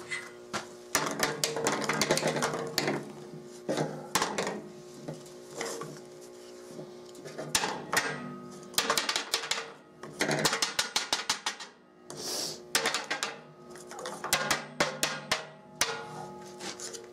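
Short pieces of PVC pipe knocking and clacking irregularly as they are set down and stood upright on a metal table-saw top, over background music.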